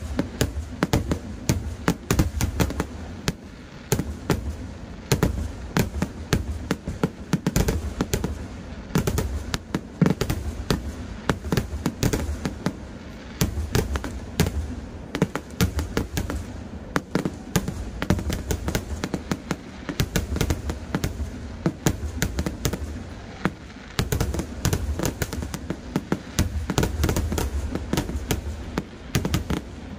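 Kerala temple-festival fireworks (vedikettu): a dense, unbroken barrage of firecracker cracks and aerial shell bursts, many bangs a second over a low boom.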